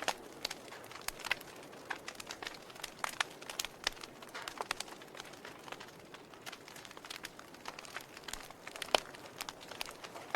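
Wood fire burning in a fireplace: irregular crackles and small pops over a soft hiss, with one sharper pop about nine seconds in.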